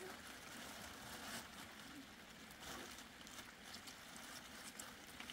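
Near-quiet outdoor background with a few faint, scattered rustles and light handling noises.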